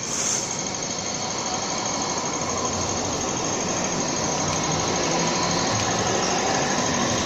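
Hong Kong Light Rail train rolling past close by on street-level track, a steady noise of wheels and running gear that slowly grows louder as the cars go by.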